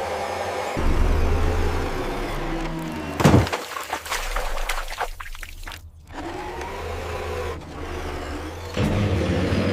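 A motor or engine sound running steadily, its pitch rising and falling, with a sharp loud knock or scrape about three seconds in. It drops out briefly near six seconds, then resumes.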